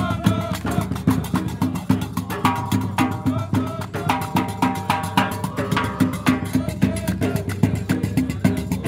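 Gnawa troupe music: iqrawn metal castanets clacking in a fast, steady rhythm with bendir frame drum and drum beats and handclaps, under men singing together, the singing strongest from about two seconds in to six.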